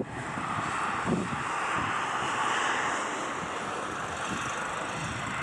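Airbus A320 jet engines on the landing roll-out: a steady, even rushing noise heard from behind the aircraft, with some low wind gusts on the microphone beneath it.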